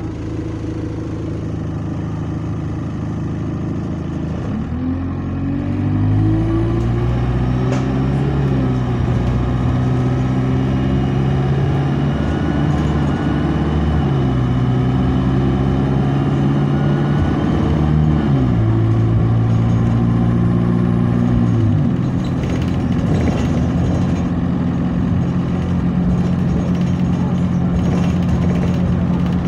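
Alexander Dennis bus's diesel engine heard from inside the cabin, revving up through several automatic gear changes, its pitch climbing and then dropping at each shift, before settling to a steady cruise about three quarters of the way in.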